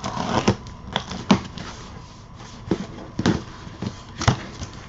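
Cardboard box and packaging being opened by hand: a rustle at first, then irregular sharp crackles and taps of cardboard flaps.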